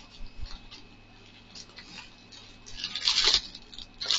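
Clear plastic packaging rustling and crinkling as it is picked up and handled, with a louder crinkle about three seconds in.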